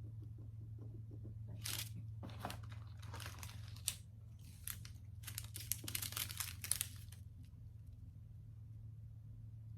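Small plastic bags of diamond-painting drills crinkling and rustling as they are handled, in a string of short bursts that stop a couple of seconds before the end, over a steady low hum.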